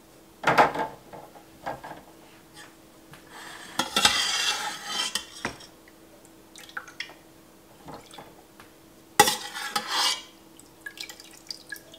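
Metal slotted spoon scraping and clanking against a stainless steel stockpot while scooping soft cheese curds, with a sharp clank about half a second in, a longer stretch of scraping around four seconds, another clank about nine seconds in, and small clicks between.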